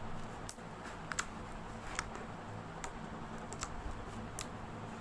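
Homemade slime made from glue and activator being kneaded and squeezed by hand, giving off irregular sharp clicks and pops as air pockets burst.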